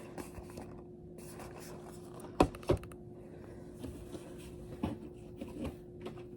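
Items being handled and set down during unboxing: two sharp knocks close together about two and a half seconds in, then a few lighter clicks, over a steady low hum.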